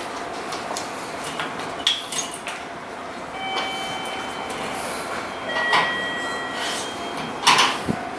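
Railway coupling gear between two freight container wagons, clanking and knocking as a worker handles it by hand. The clanks are scattered, with the loudest near the end, over steady rail-yard noise. A few faint steady whistling tones sound in the middle.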